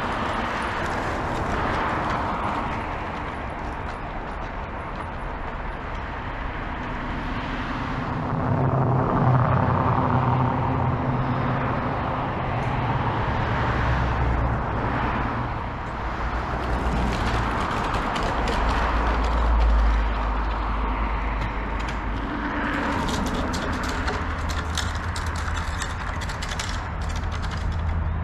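Truck engine running at low speed, its pitch stepping up and down, under a steady rushing noise.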